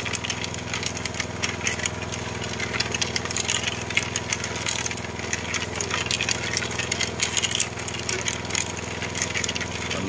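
A machine's engine running steadily at an even speed, with scattered clicks and knocks over it.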